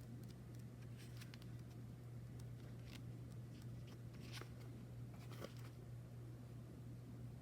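Oracle cards being handled and flipped through: a few faint, soft clicks and rustles of card stock over a steady low hum.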